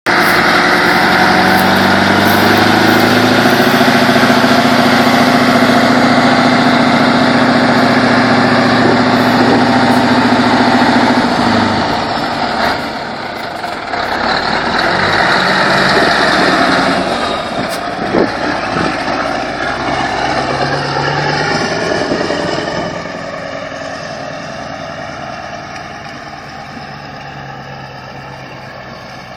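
Scania 143 lorry's V8 diesel engine running loud and steady close by; about twelve seconds in the steady note breaks off and the truck moves away, the engine rising and falling a few times and fading as it drives off.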